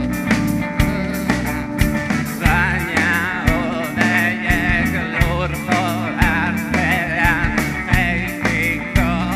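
Live rock band playing: a steady beat over low bass notes and electric guitar, with a wavering high melody line coming in about two and a half seconds in.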